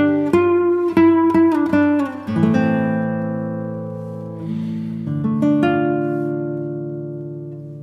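Background acoustic guitar music: quick plucked notes at first, then chords struck and left to ring and fade, a new one coming in about two seconds in and again about five seconds in.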